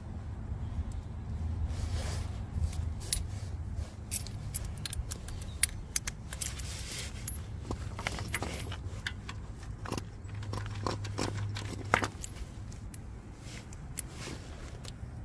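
Small metal pieces clinking and jangling in irregular bursts, with a few sharp clicks, over a low steady hum.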